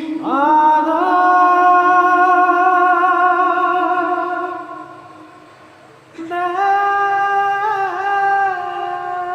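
Wordless solo singing holding two long, sustained notes: the first lasts about five seconds, and after a short dip the second comes in about six seconds in.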